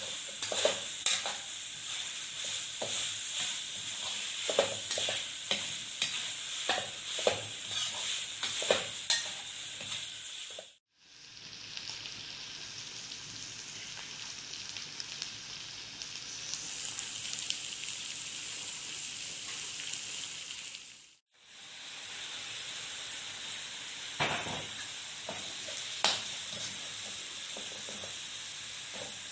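Metal spatula scraping and clattering against a wok as chopped meat with chillies sizzles in hot oil. Between two brief dropouts, near 11 and 21 seconds in, the strokes thin out and the steady sizzle carries on alone, before the scraping picks up again.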